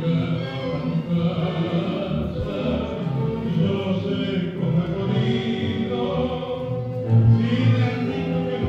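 Orchestral tango music with strings and a singing voice, played for a couple dancing.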